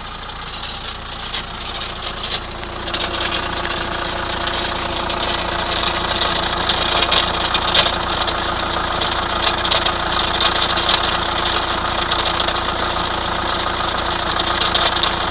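2003 Chrysler Voyager's 2.5 CRD four-cylinder common-rail turbodiesel running at idle with sharp, irregular ticking over the steady engine sound: the engine noise the owner is showing as a fault. It grows louder over the first few seconds, then holds steady.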